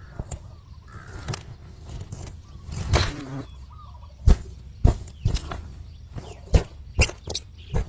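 Faint short cheeps of nestling birds amid a series of sharp knocks and rustles.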